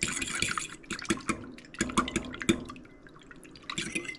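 A metal fork whisking eggs and milk into an egg wash in a ceramic bowl: quick, irregular clicks of the fork against the bowl over the sloshing liquid, with a short lull about three seconds in before the clicking picks up again.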